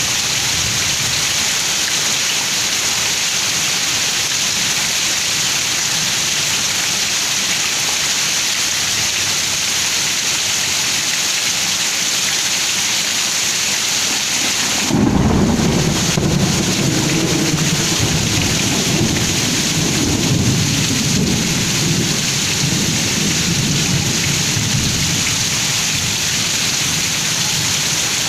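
Heavy rain pouring down steadily; about halfway through a thunderclap breaks suddenly and rolls on as a long, low rumble that slowly fades under the rain.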